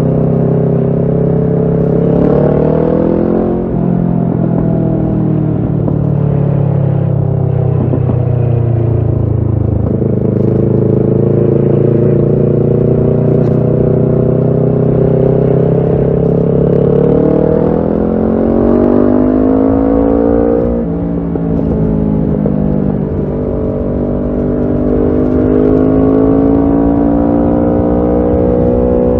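Kawasaki Ninja 650 parallel-twin engine through a Shark full aftermarket exhaust, under way. The note climbs with throttle, dropping suddenly about three seconds in and again about two-thirds of the way through, then climbing again.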